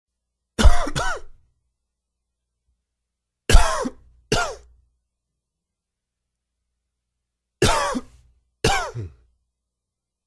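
A man coughing dry and wheezy coughs in three bouts of two quick coughs each, a few seconds apart; the uploader puts the cough down to allergies.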